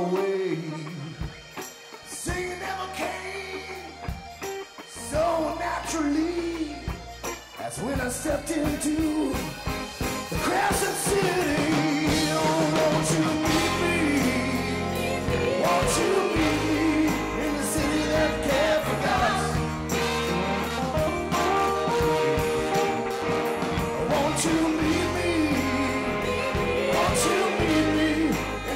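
Live soul band playing: electric guitars, drums, keyboard and horns, with a lead line bending in pitch over the backing. Sparser and quieter for the first several seconds, then the full band comes in louder about ten seconds in.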